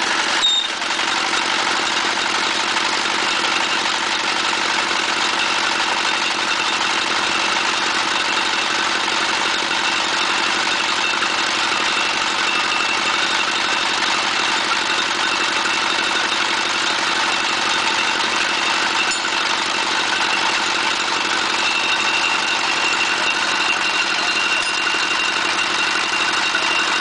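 Engine-driven core drilling rig running steadily, its engine turning the V-belts, pulleys and gearbox, with a brief metallic knock about half a second in. A faint high whine joins the running noise near the end.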